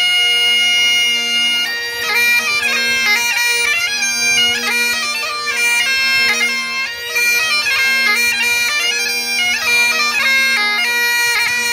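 Bagpipes playing: a steady drone under the chanter, which holds one high note for nearly two seconds and then plays a quick-moving tune.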